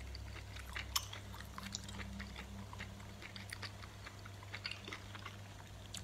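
Mouth sounds of a man chewing spicy stir-fried clam meat: many short, irregular small clicks and smacks over a steady low hum.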